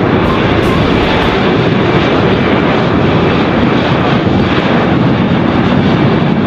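Four turbofan engines of a Boeing E-4B Nightwatch (747) running as the jet rolls along the runway: a loud, steady rush of engine noise that does not change.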